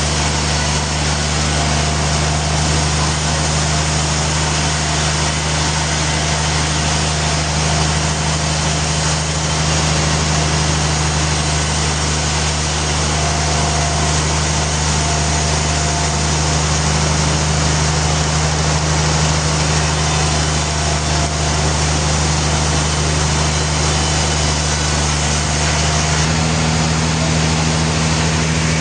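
Sawmill machinery running steadily, a constant low machine hum under a broad hiss; the hum's pitch changes slightly near the end.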